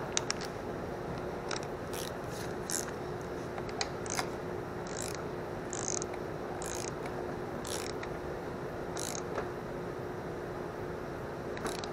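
Hand ratchet wrench clicking in short, irregular runs of strokes as small nuts are run down snug, over a faint steady hum.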